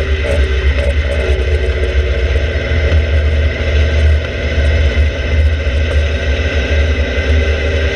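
Open-cockpit sports car's engine running steadily at track speed, heard onboard with a heavy low rumble of wind buffeting on the microphone. The engine note dips a little about a second in.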